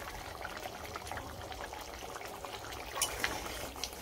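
Thick egg curry gravy simmering in a kadai: a steady bubbling, thick with small pops. A spatula clicks against the pan about three seconds in.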